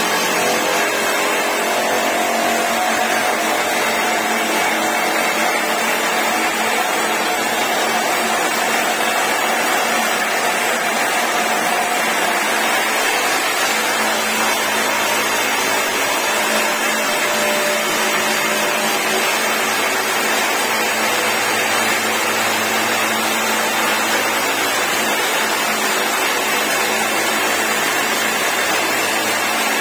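Hydraulic rock drills of a tunnel drill jumbo boring blast holes into the rock face, a steady loud machine noise that holds without a break.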